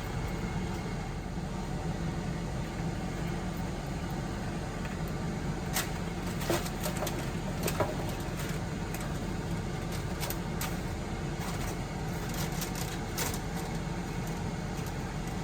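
Ninja Foodi air fryer's fan running with a steady hum, with a few light clicks of kitchen handling over it.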